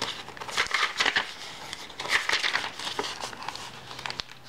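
Paper pages of a handmade journal rustling and crinkling as they are turned and handled, in a series of short rustles with a few sharp crackles.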